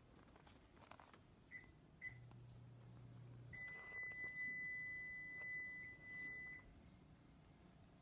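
Electronic beeper: two short high beeps about half a second apart, then one long steady high beep lasting about three seconds.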